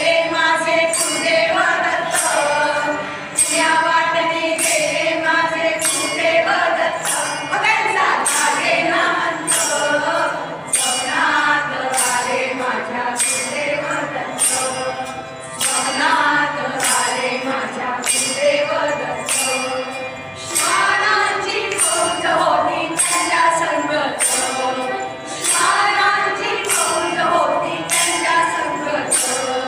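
Women's chorus singing a Marathi devotional bhajan in unison, accompanied by a harmonium and small brass hand cymbals (taal) struck on a steady beat.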